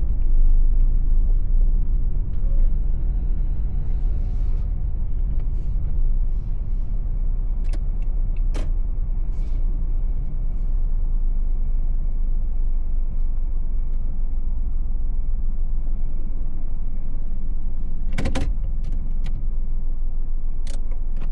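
Steady low rumble of a car's engine and tyres heard inside the cabin while driving, with a few sharp clicks or knocks, two or three together about 18 seconds in.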